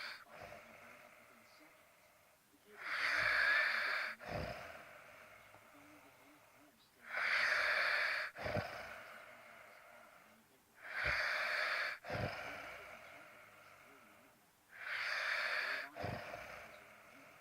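Snoring in a steady rhythm, one breath about every four seconds: each a rasping, wheezy snore about a second long, followed by a short snort.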